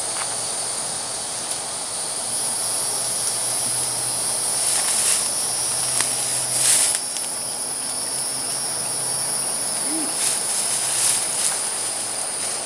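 Steady high-pitched chorus of buzzing insects, with short rustles and scrapes a few times as hammock straps and fabric are handled against a tree trunk.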